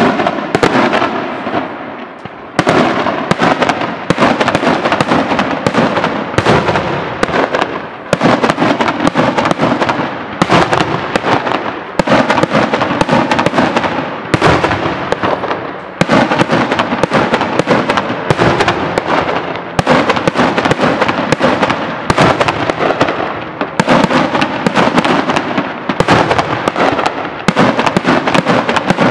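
Daytime aerial fireworks going off: dense volleys of rapid bangs and crackles, coming in waves about every two seconds.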